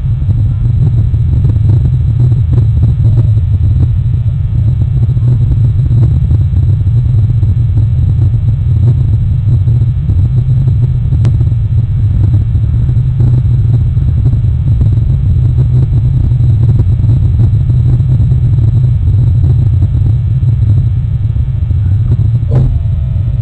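Loud, continuous low rumble, with one faint tick about eleven seconds in and a click near the end.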